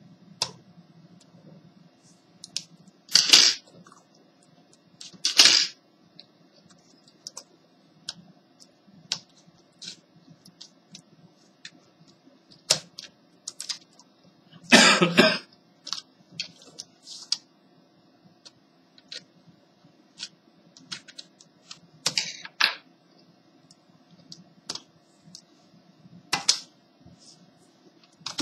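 Plastic clicks and snaps as the keyboard of an HP 6530b laptop is unlatched and pried out of its frame, with a few louder handling noises of about half a second each, the loudest about halfway through. A faint steady hum runs underneath.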